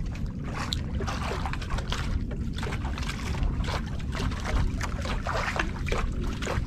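Wind buffeting the microphone over a steady low rush of sea, with water sloshing and splashing irregularly against the side of a small outrigger fishing boat.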